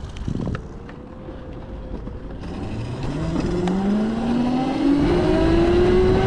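Electric motorcycle's motor whining as it pulls away, the whine rising steadily in pitch and growing louder from about two and a half seconds in as the bike speeds up. A few light knocks come before it.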